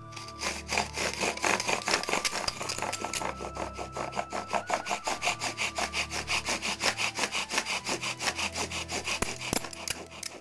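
Bow drill in use: a mullein spindle spun by quick back-and-forth bow strokes, grinding in a cedar hearth board, several strokes a second, starting about half a second in.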